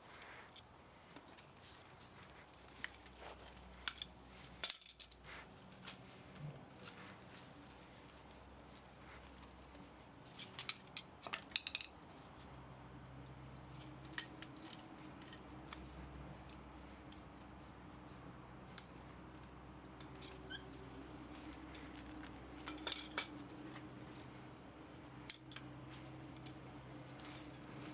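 Hand tools working on an electric pump motor being stripped for scrap metal: irregular sharp clicks and small metallic clinks, in clusters around 4 to 5 seconds in, around 10 to 12 seconds in, and around 23 seconds in.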